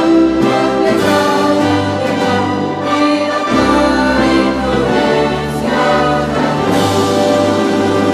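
Orchestral music with brass, playing steadily.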